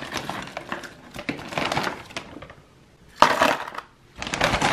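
Frozen strawberries rattling and crackling in a plastic freezer bag as they are scooped out and dropped into a plastic meal-prep container, in uneven bursts with one loud clatter about three seconds in.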